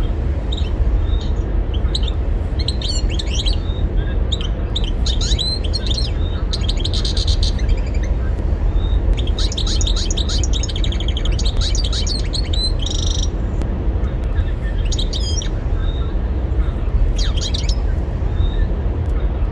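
European goldfinch singing in quick, high, twittering phrases, repeated several times with short pauses between them, over a steady low rumble.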